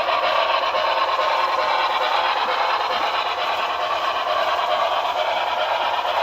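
HO scale Broadway Limited Paragon4 New York Central 4-6-4 Hudson model locomotive running along the layout track, a steady rushing running sound.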